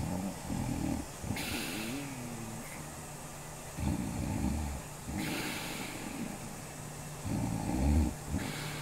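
A woman snoring in her sleep: several low, rough snores with airy, hissing breaths between them, the loudest near the end.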